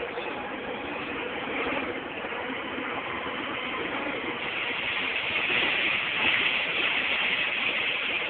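Wheel loader's diesel engine running under load while loading gravel, a steady mechanical rattle and hiss that grows louder in the second half.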